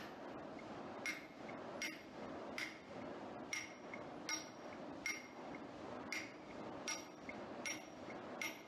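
Hand hammer driving a chisel into stone in a steady rhythm, about one blow every 0.8 seconds. Each blow has a short, bright metallic ring, heard over steady background noise.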